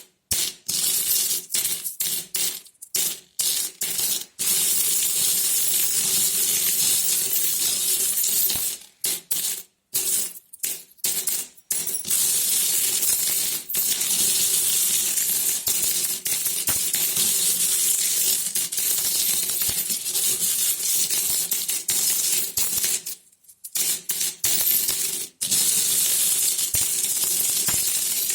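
Many metal coins jingling and clinking together in a dense, nearly continuous clatter, cutting out suddenly for a moment several times.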